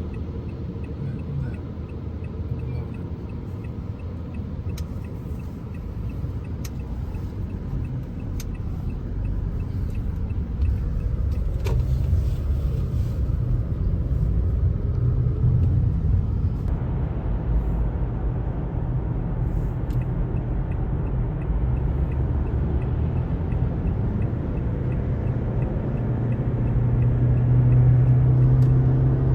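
Low, steady rumble of a moving vehicle heard from inside, slowly getting louder, with a low hum strengthening near the end and a few faint clicks.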